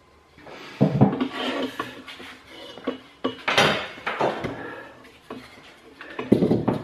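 Irregular knocks and clatter of scrap timber pieces and tools being picked up and handled, with a few sharper knocks; no drill motor running.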